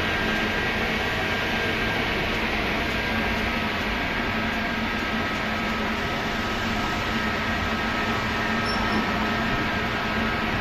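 Steady mechanical hum with a rushing-air noise and a few faint held tones, like kitchen fans or ventilation running; no distinct handling sounds stand out.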